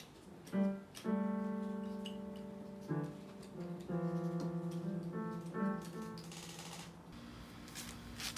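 A cat pawing the keys of a digital piano: a few scattered, tuneless single notes and small clusters, one low note left ringing for about two seconds before it fades.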